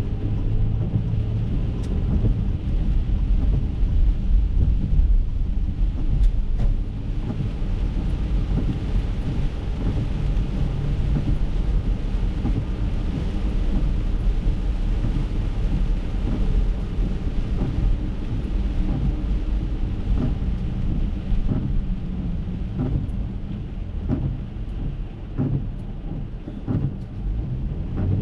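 Steady low rumble of road and tyre noise inside an Acura MDX's cabin, driving on rain-soaked roads, with a few faint ticks scattered through it. The rumble eases a little near the end.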